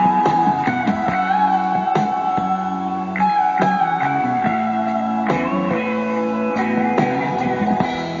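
Instrumental music carried by a guitar melody that slides and wavers over sustained bass and chord notes.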